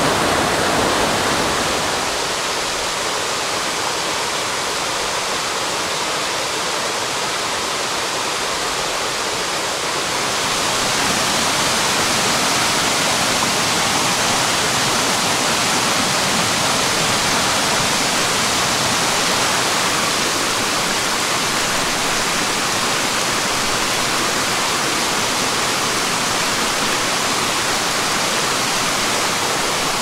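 Waterfalls rushing: steady falling water with no other sound. About ten seconds in, the rush changes to a brighter, hissier spray as a second, wider cascade of many small falls over rock ledges takes over.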